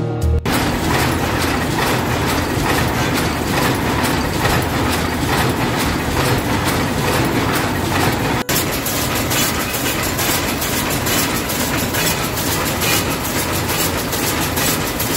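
Leavers lace machine running with a loud, fast rhythmic mechanical clatter. The clatter breaks off for an instant about eight and a half seconds in.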